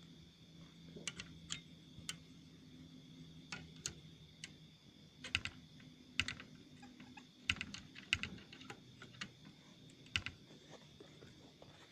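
Irregular light clicks and taps, some in quick clusters of two or three, over a faint steady low hum and a thin high tone.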